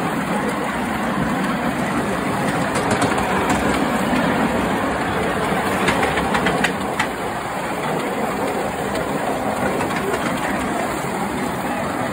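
5-inch gauge Sweet Pea coal-fired live-steam locomotive running along the track, a steady rushing sound, with a few sharp clicks about six to seven seconds in.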